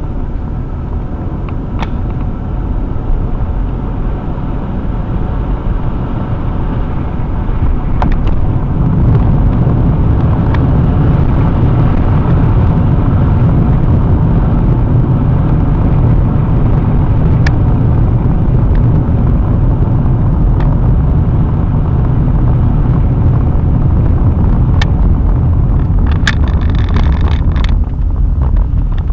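Road noise inside a moving car: a steady low rumble of tyres and engine that grows louder about eight seconds in, with a few light ticks and a brief rattle near the end.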